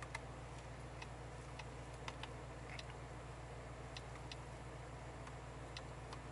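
Faint, steady low hum inside the cabin of a Mercedes-AMG G63 (twin-turbo V8) moving at low speed. Scattered light ticks come at irregular intervals, some close together and some over a second apart.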